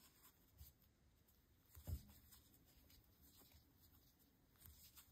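Near silence with faint rubbing and scratching of yarn on a metal crochet hook as double crochet stitches are worked, and a soft low knock about two seconds in.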